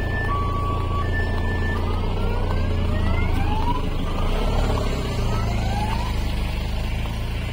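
Busy street traffic with a steady low engine rumble. For the first couple of seconds an electronic two-tone beep alternates high and low; after that, engine tones rise in pitch several times as vehicles accelerate.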